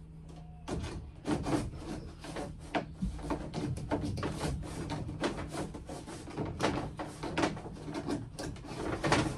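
Rubbing and scraping with quick, irregular light knocks as 6 mm solar cable is worked by hand into the gap above a ceiling panel.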